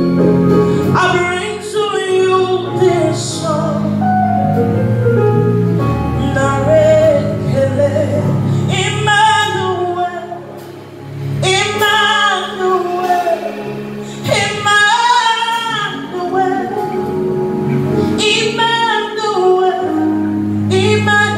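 A woman singing a gospel worship song, phrase after phrase, over held low accompaniment notes.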